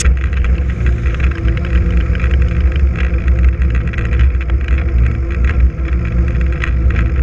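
Wind rumbling on the camera microphone of a mountain bike riding fast on asphalt, with tyre noise and scattered clicks and rattles from the bike.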